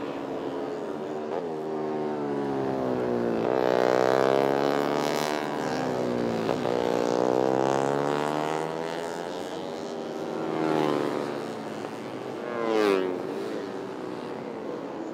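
Four-stroke 150 cc underbone (bebek) race motorcycles at full throttle, their pitch climbing through each gear and dropping at shifts. Bikes pass close with a falling pitch as they go by, the loudest pass about thirteen seconds in.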